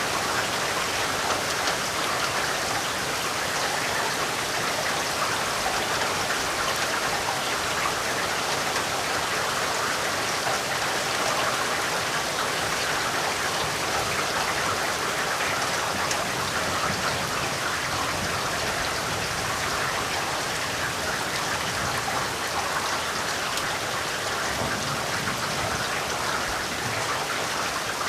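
Steady heavy rain falling, a dense even patter of drops.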